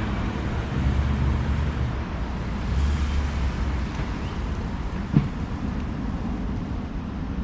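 Steady low outdoor rumble, like wind on the microphone or distant traffic, with one brief sharp knock about five seconds in.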